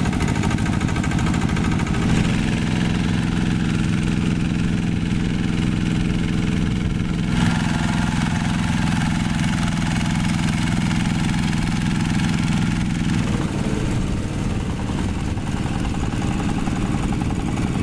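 Single-cylinder diesel engines of two-wheel walking tractors running steadily under load while tilling a flooded rice paddy. The engine note shifts abruptly a few times.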